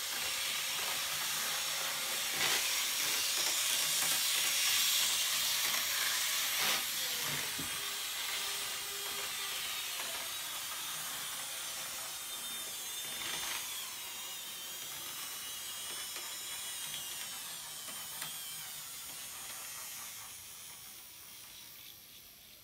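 N scale SW9 model diesel locomotive running on its track: a steady high whirring of its small electric motor and gears, with a faint wavering whine and a few clicks. The sound fades away near the end.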